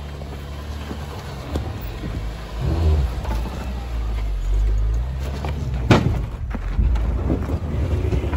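Jeep Cherokee's engine pulling at low speed as it climbs a rocky dirt ledge, the rumble swelling about three seconds in. A sharp knock comes about six seconds in.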